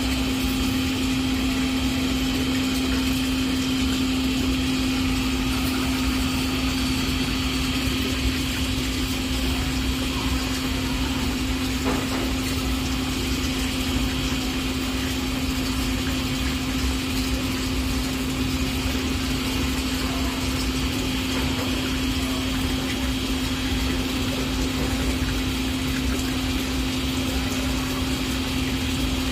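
Steady machine hum on one constant low note, with no change in level.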